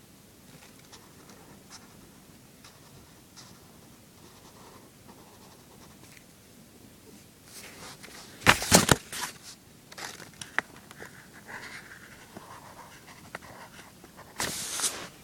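Drawing and handling noises: faint scratches and clicks, a loud rustling knock about halfway through, and a short hiss near the end.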